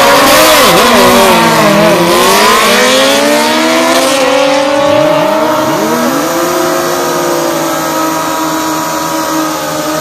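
Drag-racing motorcycle launching hard from the starting line at full throttle, loud from the first moment, its engine pitch climbing and dropping with each upshift as it pulls away down the strip. Other engines keep running steadily near the line as it fades.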